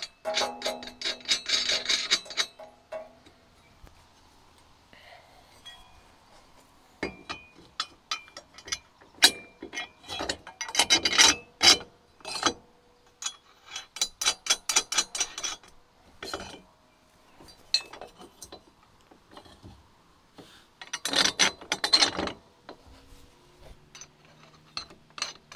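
Nuts being run onto bolts through a steel hitch-mounted lift frame: four bursts of rapid clicking, with scattered metal clinks between them.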